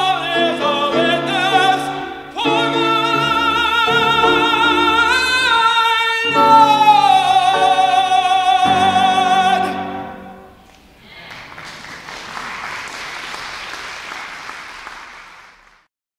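Solo tenor with piano singing the closing line of a spiritual, ending on a long held high note with vibrato that stops about ten seconds in. Then about five seconds of even, pitchless noise.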